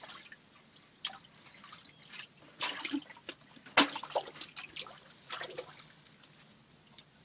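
Hands splashing and scooping in shallow muddy water while groping for fish, in short irregular splashes and drips, the loudest splash a little under four seconds in. A faint high chirping repeats in the background near the start and again near the end.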